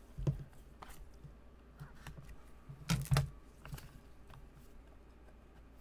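Gloved hands handling and opening a cardboard trading-card box: scattered light clicks and taps, with the loudest pair of knocks about three seconds in, over a low steady hum.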